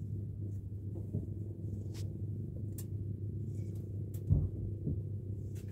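Steady low hum of a boat engine running, with a few small sharp clicks and one dull knock on the boat a little after four seconds in.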